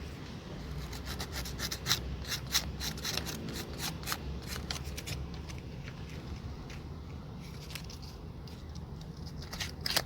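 Sandpaper rubbing in short, irregular strokes on the small metal contact pins of a Suzuki Carry's horn circuit, scouring off the rust and wear that leave the horn sounding only now and then.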